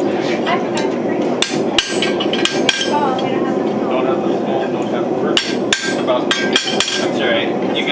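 Farrier's hammer striking a hand-held punch set on a steel horseshoe over an anvil. There are about eight sharp metallic strikes, mostly in quick pairs with a short ring after each, and a pause of a couple of seconds in the middle.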